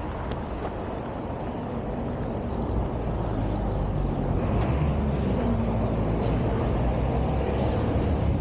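Low, steady rumble of a road vehicle's engine amid street noise, growing a little louder about three seconds in.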